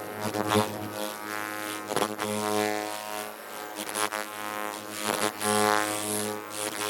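A multi-function facial beauty machine running after its start button is pressed, giving a steady electric buzz with a low hum and overtones that swells and fades every second or so, with a few faint clicks.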